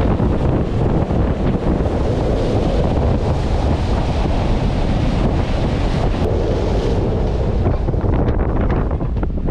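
Wind blasting across the microphone aboard a boat under way, mixed with the rush of water; a loud, steady noise throughout.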